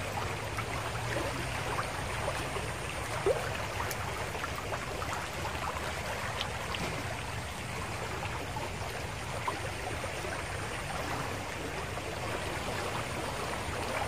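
River water flowing steadily past the bank, a constant rush from a river running high and muddy after overnight rain, with one small knock about three seconds in.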